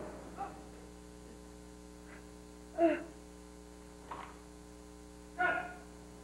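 A steady electrical mains hum, with a few brief sharp sounds over it, the loudest about three and five and a half seconds in.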